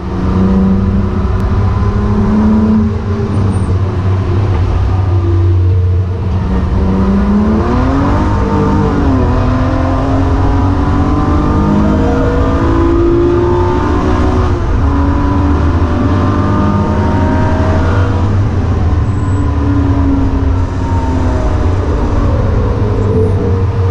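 BMW E36 M3's straight-six engine under load on track, heard from inside the cabin: a loud, steady rumble whose pitch climbs and drops several times as the car accelerates and slows through the lap.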